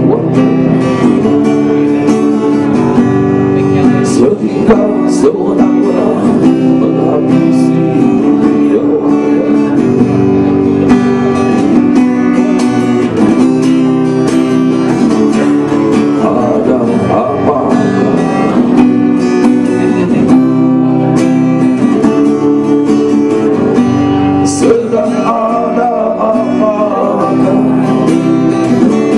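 Live acoustic music: an acoustic guitar strummed in a steady chord pattern, with a voice singing over it in places.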